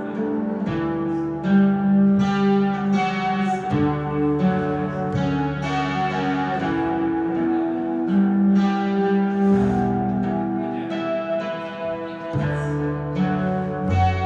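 Acoustic guitar and plucked double bass playing an unhurried instrumental piece live, the bass holding long low notes that change every second or two under the guitar's chords and single-note lines.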